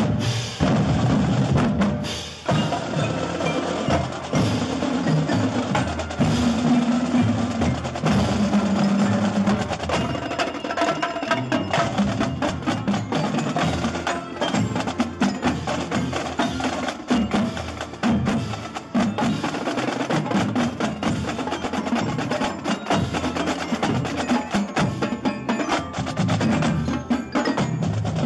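Background music with a busy, steady wood-block beat and chiming bells over a pitched melody and bass line.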